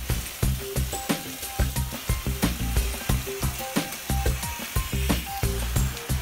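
Background music with a steady beat, about four clicks a second and short synth notes, over a steady hiss of water spraying from a garden hose onto the light fitting.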